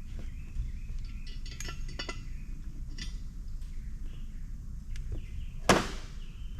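Light metallic clicks and clinks of a square-drive screwdriver bit being fitted and turned by hand on tight screws in a cooler's heat-sink assembly, with one louder click near the end.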